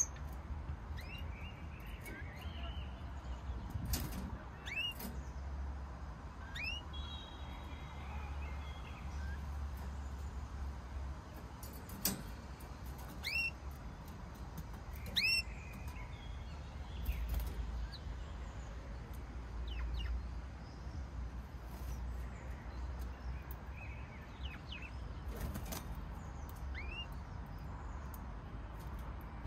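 Canary giving short, rising chirp calls, scattered every second or so, not a continuous song, with a few sharp clicks mixed in and a low steady rumble underneath.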